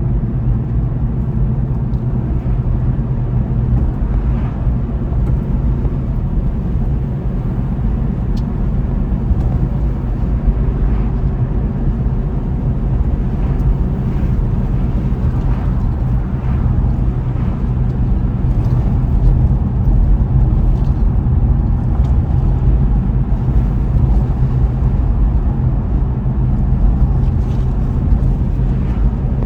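Car driving along a road: a steady low drone of engine and tyre noise, with a few faint ticks here and there.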